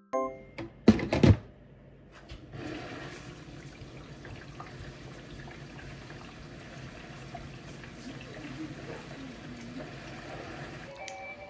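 A couple of sharp knocks, then a steady rush of running water that goes on for about eight seconds and cuts off suddenly near the end.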